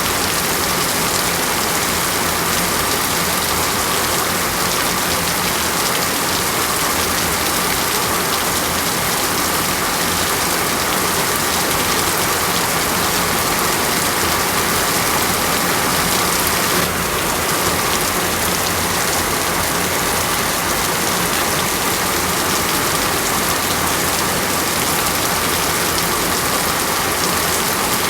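Steady, heavy rain falling on a surface: a dense, even hiss that does not let up.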